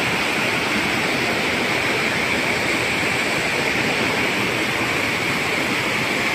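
Rushing white water of a waterfall-fed mountain stream cascading over rocks, a steady loud rush.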